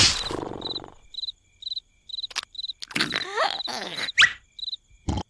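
Crickets chirping in short, regularly spaced pulses. A loud snore fades out in the first second. Brief cartoon squeaks and glides come around the middle, and the loudest sound is a sharp rising squeal just after four seconds.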